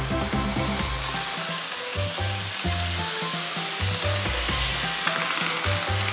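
N gauge model train, an electric locomotive hauling 24-series sleeper coaches, running on the track: a steady high-pitched running noise of wheels on rail and motor, louder near the end as the train passes close. Background music with bass notes plays underneath.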